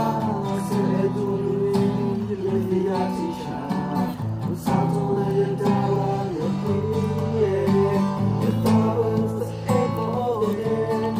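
Acoustic guitar strummed in steady chords under a sung melody, one continuous song.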